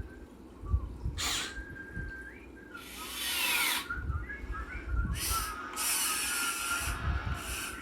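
Small electric motors of a Huina 1580 all-metal RC excavator running in several short bursts with a whine.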